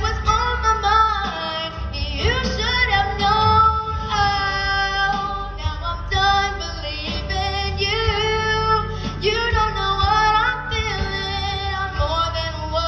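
A girl singing a slow ballad solo into a microphone, holding and bending long sung notes over a steady instrumental accompaniment.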